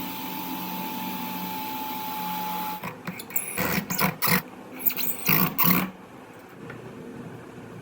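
Electric hand drill running at a steady speed, then switching off about three seconds in; a few loud, irregular knocks and clatter follow.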